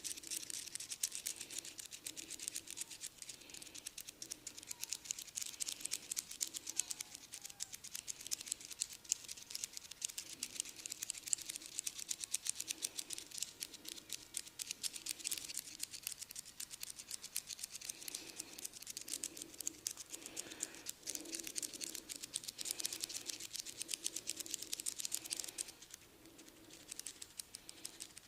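Close-miked crackling and scratching of hair against the scalp during a head massage: a dense run of tiny clicks that keeps going, with a soft rubbing underneath that swells and fades again and again.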